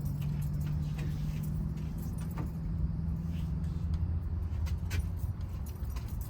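1973 VW Super Beetle's air-cooled flat-four turning over steadily on the starter without firing, because the ignition is giving no spark. The cranking stops about four and a half seconds in.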